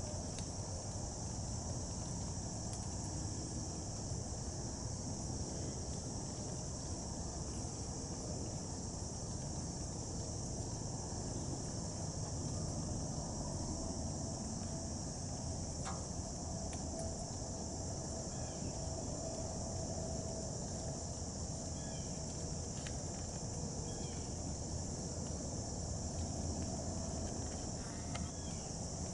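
A steady, high-pitched insect chorus, cricket-like, over a low background rumble, with a few faint short chirps in the second half.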